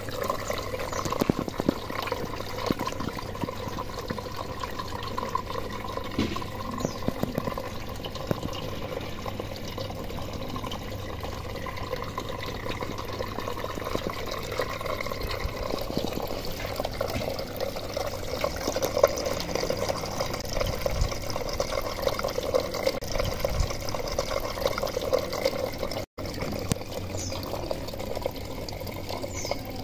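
Water running steadily through a hydroponic setup's PVC pipes and channel, a continuous trickling flow. It breaks off for an instant a few seconds before the end.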